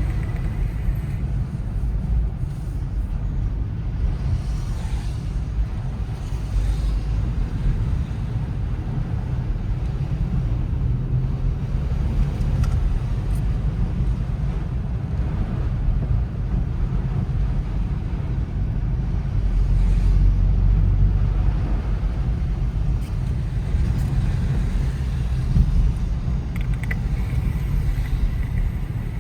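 Strong wind buffeting the microphone: a steady low rumble that rises and falls in gusts, a little stronger about two-thirds of the way through.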